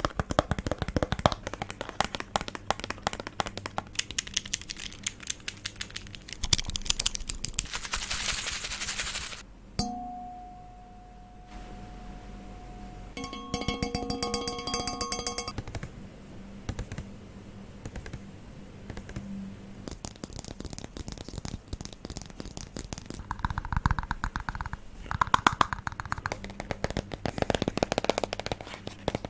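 ASMR trigger sounds: rapid, crisp tapping and clicking throughout. About ten seconds in, a single steady ringing tone holds for a second or two, and a few seconds later several ringing tones sound together under fast clicking.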